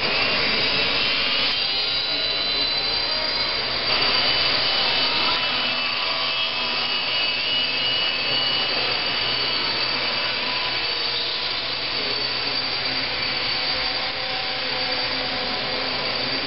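Pietenpol Air Camper micro RC model airplane's small geared electric motor and propeller whining steadily, the pitch shifting with the throttle and the sound getting louder about four seconds in.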